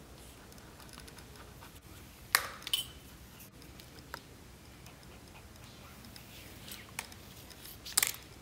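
Light handling of a beaded metal lanyard chain with needle and thread: a few sharp small clicks, the loudest about two seconds in and another near the end, over faint rustle.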